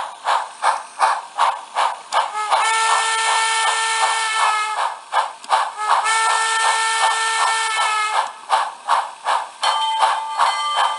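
Tsunami heavy-steam sound decoder played through a tiny Cube speaker in its enclosure: a steady run of steam-locomotive chuffs, about two and a half a second, broken by two long chime-whistle blasts, with the whistle sounding again over the chuffs near the end.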